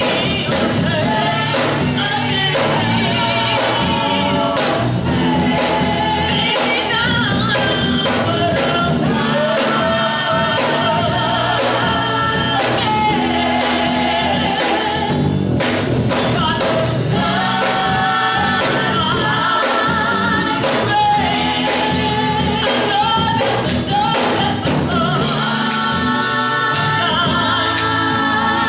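Gospel song performed live, with voices singing over a full band backing.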